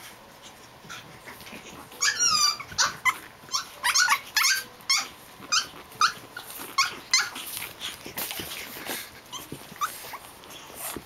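Japanese Chin puppies play-fighting, giving many short, high-pitched yips and whines in quick succession from about two seconds in.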